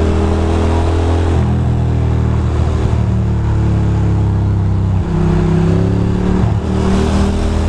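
Ducati Monster 620's air-cooled L-twin engine pulling hard under the rider. Its pitch steps with gear changes about one and a half seconds, five seconds and six and a half seconds in, with wind rushing over the helmet microphone.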